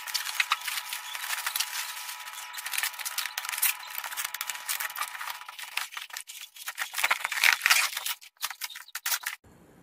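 Plastic air-column bubble wrap crinkling and crackling as it is handled: a dense, irregular run of sharp crackles that cuts off abruptly near the end.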